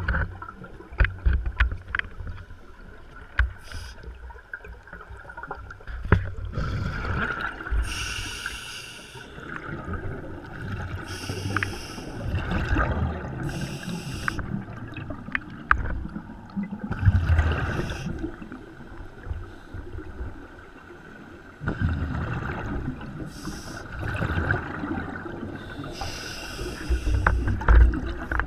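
A scuba diver breathing through an open-circuit regulator underwater: a hiss on each inhalation, then a low rumbling gush of exhaled bubbles, several breaths about five seconds apart. A few sharp clicks come in the first few seconds.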